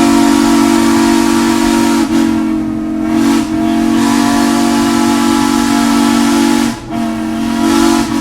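Steam locomotive whistle sounding loudly in long blasts with brief breaks, over a hiss of escaping steam.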